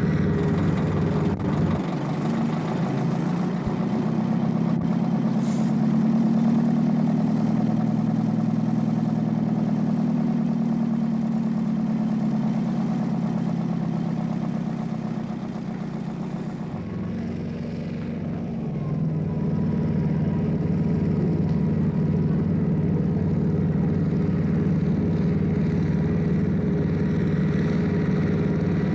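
Engines of heavy snow-clearing vehicles running steadily, with a short dip and a shift in pitch a little past the middle.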